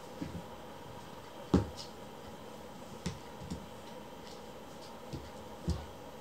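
Kittens pouncing and wrestling on a floor: scattered soft thumps and scuffs from their paws and bodies, the loudest thump about a second and a half in, over a faint steady hum.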